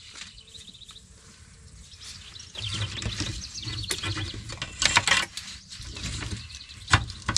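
Hands working wiring-harness plugs loose inside a stripped truck door: irregular rustling and handling of plastic connectors and wires, with sharp clicks about five and seven seconds in.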